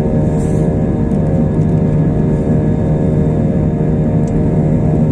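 Airbus A320 jet engines heard from inside the cabin during the climb after takeoff: a steady, even drone with a strong low hum and several steady tones above it.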